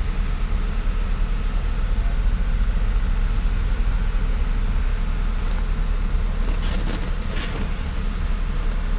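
Mercedes-Benz SLK 350's V6 engine idling steadily, with a few light clicks about two-thirds of the way through.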